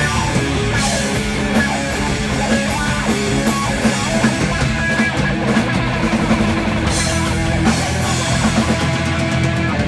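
Heavy stoner rock band playing loud and steady, with drum kit, bass guitar and electric guitar, and a few cymbal crashes.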